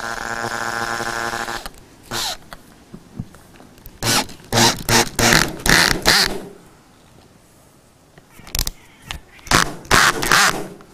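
Makita cordless drill driving self-tapping screws through cable clamps into metal trim. It starts with one steady motor run that stops under two seconds in, then comes short trigger bursts: one alone, a quick cluster of about five a little before the middle, and another cluster near the end.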